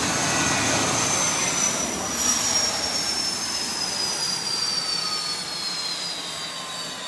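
Concorde's Rolls-Royce/Snecma Olympus 593 turbojet spooling down. A high whine falls steadily in pitch over a rushing jet noise that gradually fades.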